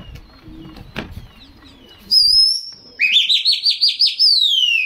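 Loud whistling, as pigeon flyers use to signal a flying flock. There is a short high note about two seconds in, then a quick run of about six rising trills and one long falling note near the end. Faint small-bird chirps come before it.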